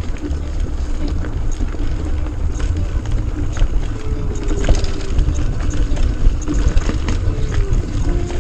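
Mountain bike being ridden on a dirt trail: wind rumbling on the microphone, with scattered clicks and rattles from the bike and tyres over the ground.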